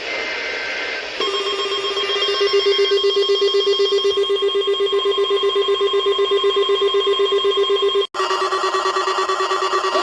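Weather-radio emergency alert reception. About a second of hissy signal carries the two-tone warble of SAME digital header data. Then a loud, steady alert tone of several pitches sounds with a rapid pulsing, and drops out for an instant near the end.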